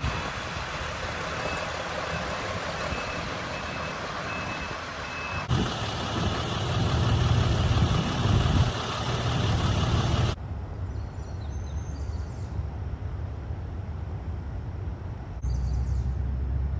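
Outdoor background noise from several spliced clips. The first clip is a steady hiss with a faint beep repeating about twice a second, like a vehicle's reversing alarm. The later clips carry a low vehicle engine rumble, louder in the second clip.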